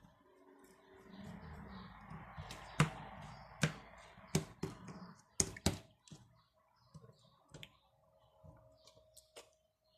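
Slime being squeezed and worked by hand: a wet rustling with sharp clicks and pops, about half a dozen loud ones. After the middle it settles to a few faint clicks.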